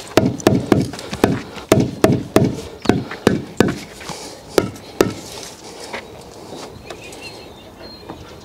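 Rubber mallet tapping an aerated concrete block down into its bed of thin-set block adhesive to seat it level: a quick run of about a dozen dull knocks, roughly three a second, then a few lighter, sparser knocks a little later.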